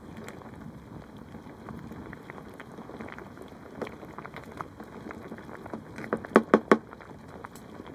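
Beef stew simmering in an open pan, bubbling and popping steadily. About six seconds in come four loud, sharp knocks in quick succession.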